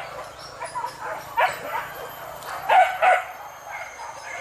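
Hunting dogs barking and yelping in short bursts, the loudest a pair of barks about three seconds in.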